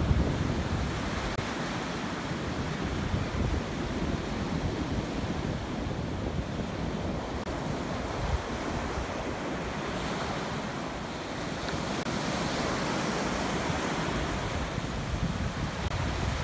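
Ocean surf breaking and washing up a sandy beach in a steady wash of noise, with wind rumbling on the microphone.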